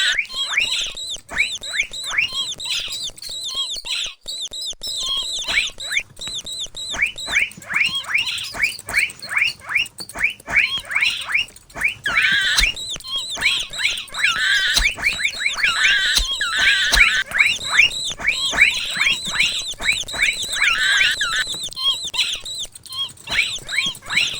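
Mouse squeaking sound effect: rapid runs of short, high squeaks falling in pitch, several a second, with a few longer warbling squeaks mixed in.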